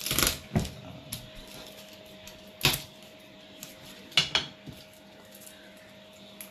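Garlic cloves crushed under the flat of a kitchen knife on a plastic cutting board: a crackling, crunching press and knock at the start, then a few sharp knocks and clicks of the knife and board, a single one about two and a half seconds in and a quick pair about four seconds in.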